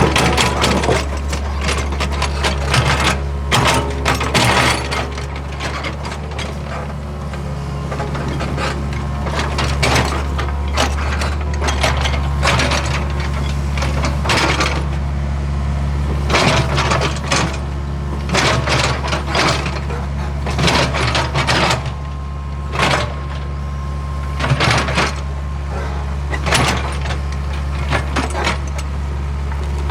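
Hitachi ZAXIS75UR compact excavator's diesel engine running steadily with a low drone, while its bucket scrapes and knocks on stones and soil in irregular clanks, levelling a dirt road.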